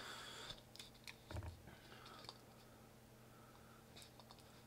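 Near silence with faint handling noise: a vinyl sticker being peeled off its backing and pressed onto a plastic lens cap, a short rustle at the start, then a few faint ticks and rustles.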